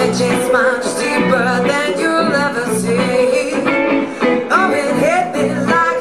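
Live band music: a woman singing a melody into a microphone over electric guitar.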